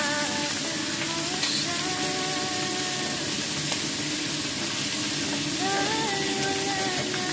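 Fish frying in a wok over a gas flame, a steady sizzle throughout, with a faint melody playing underneath.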